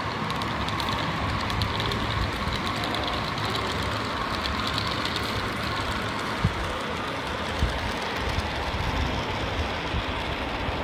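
HO-scale model freight train rolling along the layout track, with a steady running noise from the cars' wheels on the rails and two sharp clicks in the second half.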